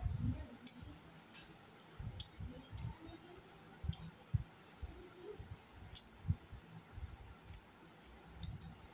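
Close mouth sounds of a man eating rice by hand: chewing with irregular sharp wet clicks and lip smacks about every one to two seconds, over soft low thuds.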